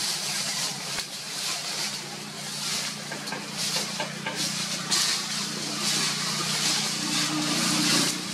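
Steady low hum under a high hiss that swells and fades about once a second.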